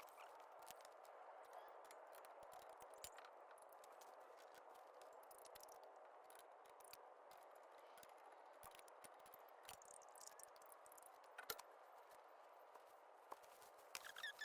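Near silence: a faint steady hiss with scattered faint small clicks, one slightly louder click about eleven seconds in.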